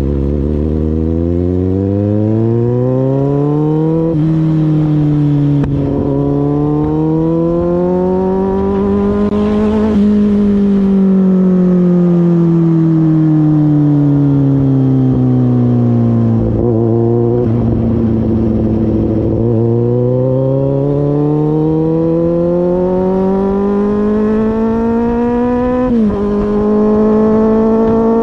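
Kawasaki Z800's inline-four engine and exhaust under way, heard from the rider's seat. It pulls up in pitch with a gear change about four seconds in, eases off and winds down for several seconds, then pulls up again with another upshift near the end. Wind rush sits under the engine throughout.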